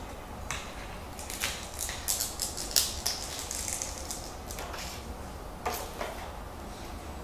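Thin self-adhesive silver foil sheet crinkling and crackling as it is peeled from its backing and handled. A quick run of crackles in the first few seconds, then a few single crinkles.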